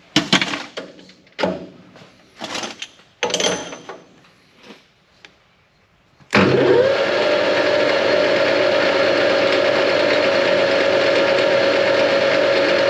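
Several sharp, irregular knocks and clunks over the first five seconds. About six seconds in, the JFMT lathe starts: the spindle and four-jaw chuck spin up with a quickly rising whine that settles into a steady gear whine over the machine's running noise.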